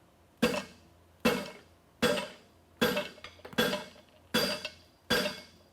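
Striker's sledgehammer blows on a hot steel horseshoe held on a block, drawing out flashing to make a toe clip: seven evenly spaced ringing strikes, a little under a second apart.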